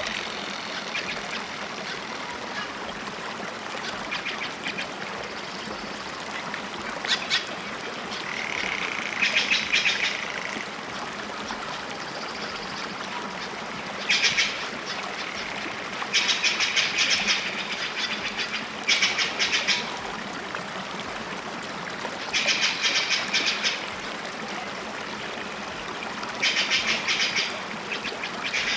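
A bird calling in rapid chattering bursts, each about a second long, repeated about eight times over a steady background hiss.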